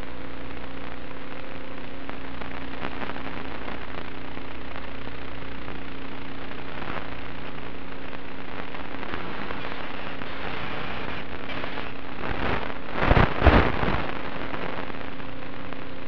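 Hiss and crackling static on the audio of a 1.3 GHz analog FPV video link, over a steady hum. The static is the sound of the radio signal breaking up. A short run of loud crackles comes near the end.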